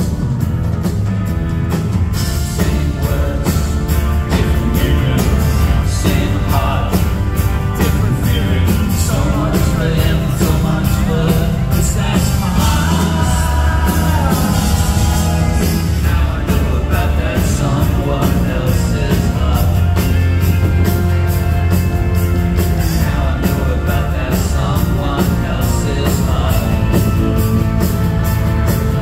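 Live pop-rock band playing a song: a male lead vocal over electric guitars, keyboards, bass and drums, recorded from the crowd.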